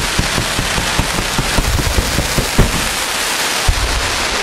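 Fireworks, a volley of rockets launching: a steady hiss and crackle with a rapid string of low bangs, and one louder bang about two and a half seconds in.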